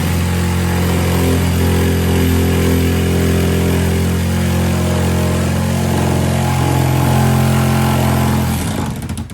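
Electric jigsaw running continuously at a steady speed while cutting. Near the end it winds down and stops.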